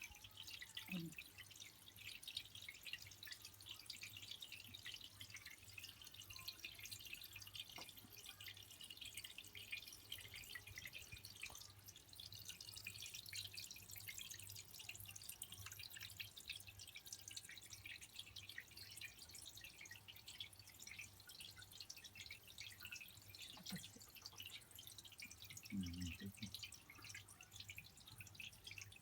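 Faint, quick dripping and pattering of water from a tap into a bathtub, with a low steady hum underneath.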